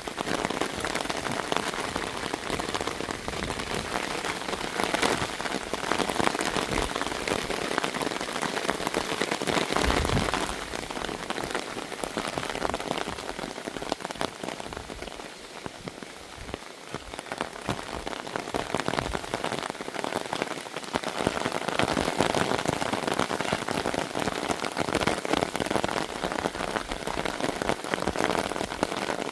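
Rain falling in gusty wind, the drops hitting a small umbrella held close overhead. It swells and eases in waves, with a gust buffeting the microphone about ten seconds in.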